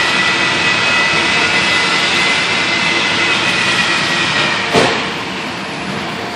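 Steady mechanical noise with a faint high whine, and a single sharp knock about five seconds in.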